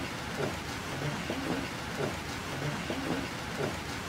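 Steady rain falling: an even hiss of rain with many separate drops splashing.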